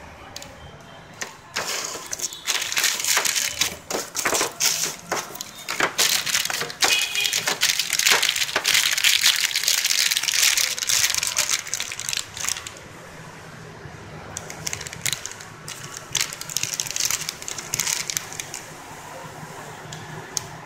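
Thin clear plastic packaging bags crinkling as the packed accessories are picked up and handled: a dense, busy crackle starting about a second and a half in, easing after about twelve seconds to lighter, scattered crinkles.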